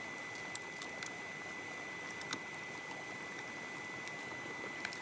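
A few faint clicks and rustles of hands working a plastic wiring-harness connector loose behind a car's dashboard. Under them runs a steady hiss with a thin, constant high-pitched tone.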